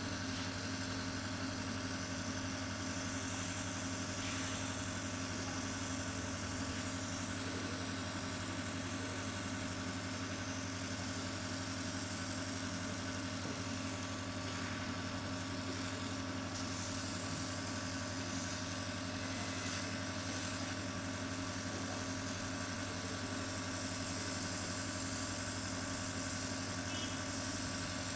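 Oxygen facial machine's air pump running with a steady hum, as its pen-shaped oxygen spray gun hisses a fine mist of product onto the skin.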